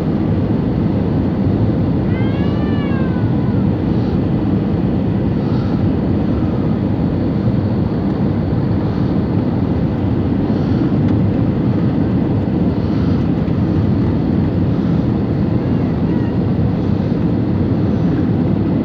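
Airliner cabin noise in flight: the steady, deep rumble and rush of the jet engines and airflow heard from inside the passenger cabin.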